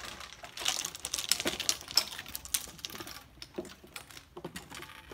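Golf clubs rattling and clattering against each other in a carry bag on a man's back as he swings along monkey bars. A quick run of clicks, busiest in the first three seconds, then a few scattered knocks.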